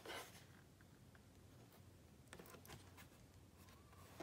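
Near silence, with a few faint handling clicks and scrapes.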